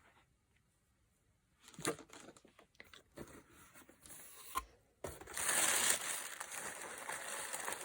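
Box packaging being handled: a few light knocks and rustles, then from about five seconds in a steady, loud crinkling as the wrapping is pulled about.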